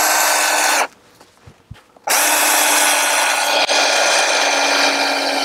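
Cordless drill driving long screws into timber roof rafters: a short run that stops just under a second in, a pause of about a second, then a long steady run from about two seconds in.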